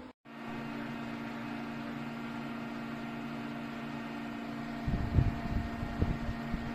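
Small electric table fan running steadily, a motor hum with an even rush of air. A few low thumps come about five and six seconds in.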